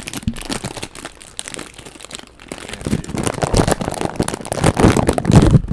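Crinkling and crackling of a blind bag's wrapper being opened and handled to get at the figure inside, growing louder in the second half and stopping abruptly near the end.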